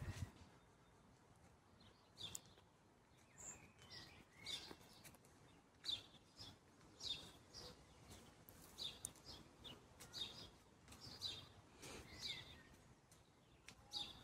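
Faint bird chirping: short, high chirps that slide down in pitch, repeated one or two a second.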